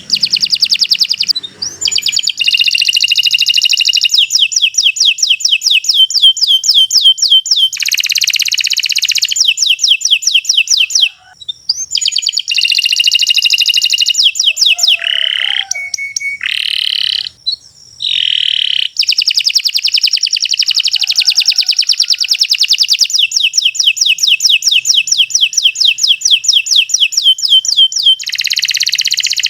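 Domestic canary singing long, rapid trilled phrases of high repeated notes, broken by a couple of brief pauses. This is the continuous, loud singing that canary keepers call 'gacor'.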